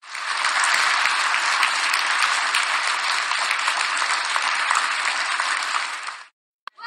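Crowd applauding: a dense, steady clapping that cuts off shortly before the end, followed by a single faint click.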